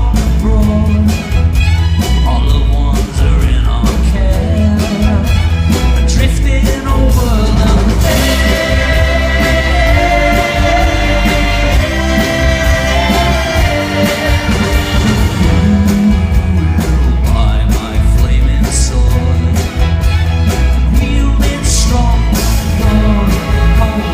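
Live pop-rock band playing with a symphony orchestra: a full, loud mix of drums, bass, guitars and sustained orchestral lines, with singing in places.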